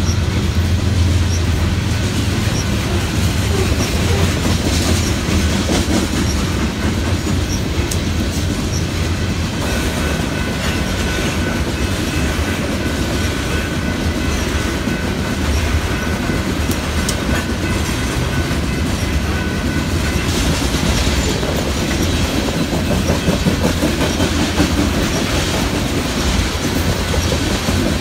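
Loaded coal hopper cars of a long freight train rolling steadily past, with a low rumble and the wheels clicking over the rail joints.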